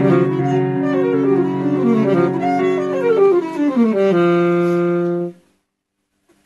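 Instrumental music: a melody moving up and down in steps over sustained chords. It cuts off suddenly about five seconds in.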